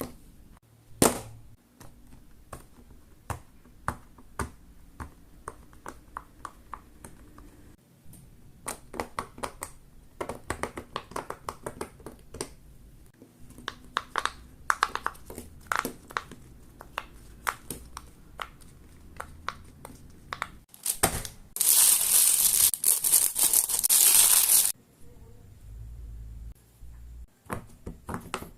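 Silicone pop-it fidget toy bubbles pressed in quick succession, making many small irregular pops and clicks. Near the end a loud crinkling, crushing noise lasts about three seconds.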